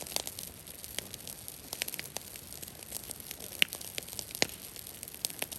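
Brush fire of cedar branches crackling: many irregular sharp pops over a faint steady hiss, with two louder pops near the middle.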